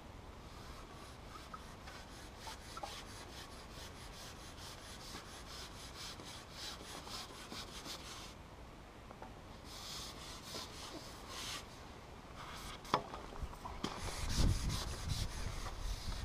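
Dry rubbing and scraping in quick repeated strokes, as a long carbon fishing pole is slid back and handled. A low rumble joins near the end.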